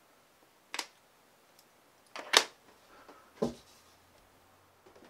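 Three short clicks of small tools and parts being handled and set down on a workbench, about a second in, near two and a half seconds and near three and a half seconds, the middle one loudest.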